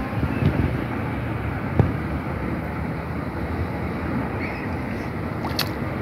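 Wind buffeting the microphone: a steady rumbling hiss, with a sharp knock about two seconds in and a few faint clicks near the end.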